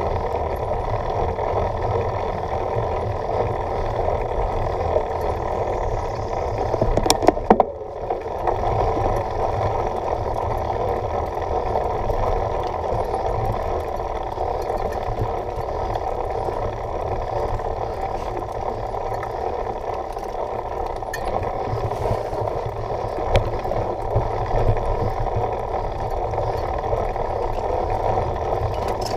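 Mountain bike riding over a dirt forest trail, picked up by a camera mounted on the rider or bike: a steady rumble of tyres and wind with the bike rattling over bumps. A cluster of sharp knocks comes about seven seconds in.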